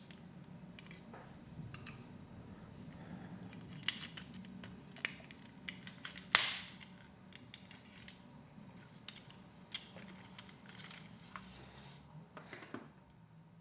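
Plastic Lego Technic pieces clicking and tapping as they are handled and pressed together, with scattered small clicks and two louder clacks about four and six seconds in.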